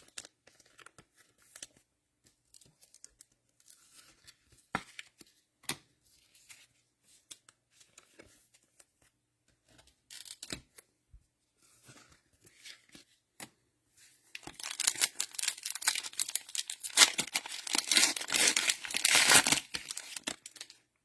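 Cellophane wrapper of a trading-card cello pack being torn open and crinkled, loud for about five seconds near the end. Before it, quiet handling of cards with scattered light clicks.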